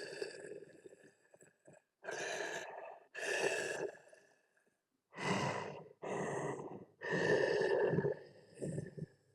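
Tusken Raider (Sand People) vocal sound effects: a string of about seven short, noisy grunts and growls with brief gaps between them, stopping abruptly near the end.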